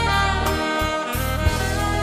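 Soprano saxophone playing a slow melody over a backing track with bass and a light beat. Some notes slide into the next.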